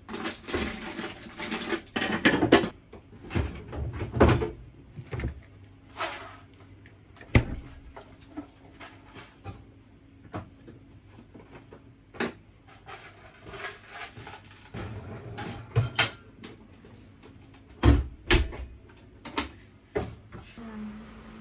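Dishes and cutlery being loaded into a dishwasher's racks: a string of separate knocks, clinks and clatters, with the dishwasher door shut near the end. A steady low hum starts just before the end.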